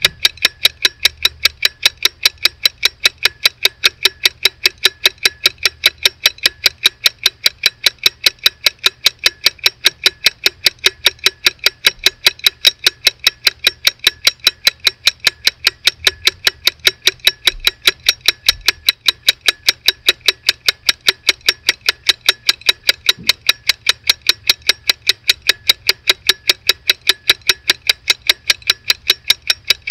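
Antique cylinder-escapement pocket watch (an eight-jewel 'Cylindre Huit Rubis' movement) ticking steadily and evenly, about five sharp ticks a second, recorded close up.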